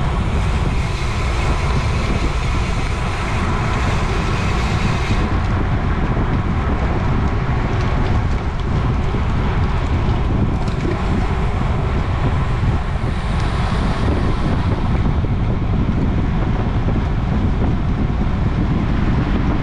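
Wind buffeting the microphone of a camera on a bicycle ridden at race speed: a steady, loud rush of low noise with no breaks.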